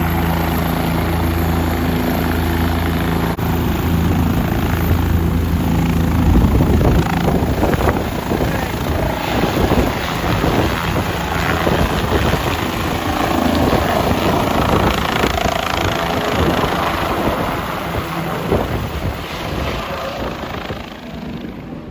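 Rescue helicopter's rotors close by: a steady low hum for about the first six seconds, then a loud rushing noise with rapid rotor chop and wind on the microphone, easing off near the end.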